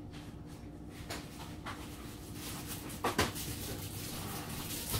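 A few faint knocks and clicks of things being handled and moved in a kitchen, the loudest pair about three seconds in, over a steady low hum.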